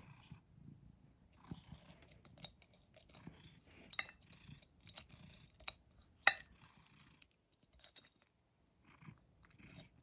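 Light clicks and scrapes of a cat's paw and claws against a small glass jar and the dried sardines inside it as the cat fishes for one. The clicks are scattered and faint, with the sharpest about six seconds in and a quieter spell a second or two later.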